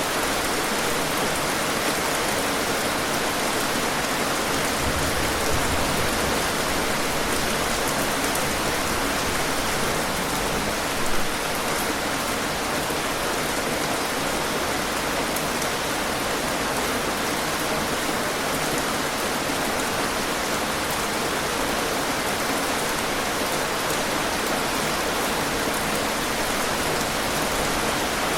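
Steady, heavy rainfall pattering densely on surfaces, with one brief louder spatter about eleven seconds in.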